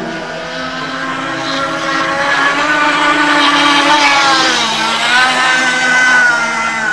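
Two-stroke engines of two radio-controlled model speedboats running flat out. The sound grows louder as the boats come closer, and the pitch dips about four seconds in before climbing again.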